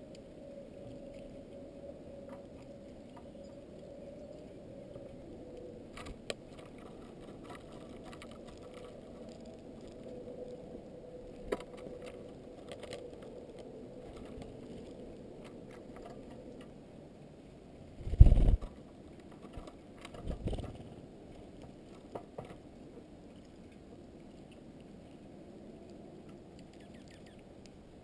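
Small birds feeding on a platform seed feeder, with scattered light taps and rustles of pecking and scratching in the seed. Two loud, low thumps on the feeder come about 18 and 20 seconds in.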